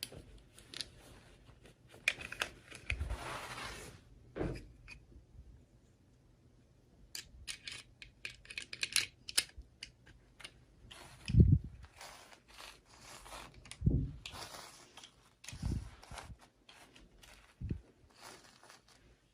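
Toy packaging being opened and handled: plastic crinkling and tearing with scattered clicks and taps. There are a few dull knocks in the second half.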